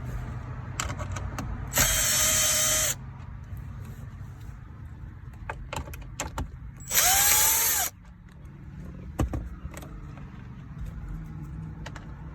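Milwaukee cordless impact driver run in reverse in two bursts of about a second each, backing out two 7mm bolts. The second burst rises and falls in pitch as the motor spins up and winds down. Small clicks of handling fall between the bursts.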